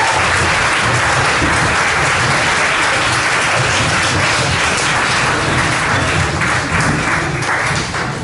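Audience applauding, a dense steady clatter of many hands that thins out near the end.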